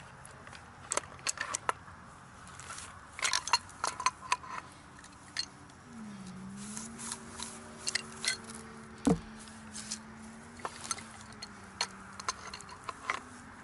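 Pipe wrenches clicking, tapping and scraping on the metal drop pipe and the old submersible pump's fitting as they are worked to unscrew the pump: a scattered series of sharp metallic clicks. A steady hum joins in from about six seconds in and fades near the end.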